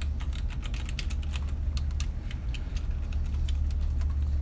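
Typing on a computer keyboard: a quick, uneven run of key clicks, heard over a steady low hum.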